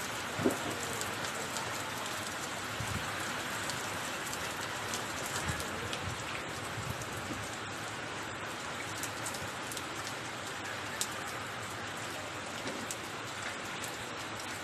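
Steady typhoon rain falling, an even hiss with scattered sharp drip ticks and a low thud about half a second in.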